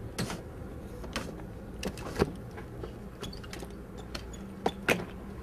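Scattered sharp clicks and knocks, about six of them, over a steady low hum; the loudest comes a little past two seconds in, and two follow close together near the end.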